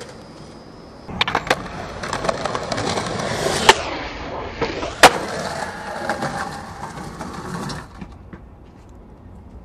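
Skateboard wheels rolling over rough concrete. About a second in, the board is pushed off, and a few seconds in the tail pops for a flip trick. The board lands with a loud slap a little over a second later and rolls on before stopping near the end.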